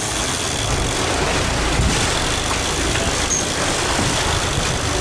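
Wind buffeting the microphone over the rush of water and breaking waves along a sailing catamaran's hull, a steady loud noise with a low rumble.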